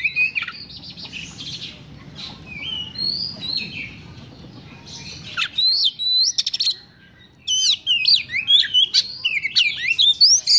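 Male Oriental magpie robin singing loudly in rapid, varied phrases of sliding whistled notes, with a quick run of rattling clicks about six seconds in and a short break just before the busiest stretch of song near the end.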